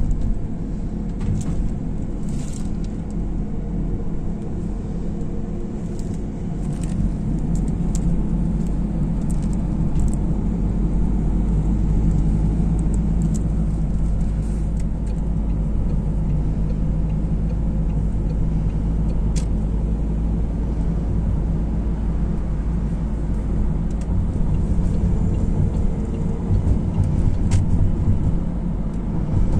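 Steady low rumble of a car's engine and tyres heard from inside the cabin while driving on a highway, with a few faint, irregular ticks.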